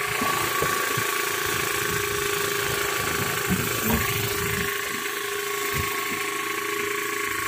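A boat engine runs steadily with a constant hum, and a couple of brief knocks come about halfway through.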